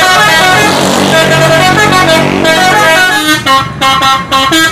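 Indonesian bus 'telolet' musical horn: several horn tones sound together, stepping from note to note like a tune, then break into a string of short blasts with gaps between them from about three seconds in.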